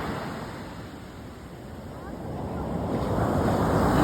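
Sea waves washing ashore: a rushing surf that fades and then swells up again, with wind rumbling on the microphone.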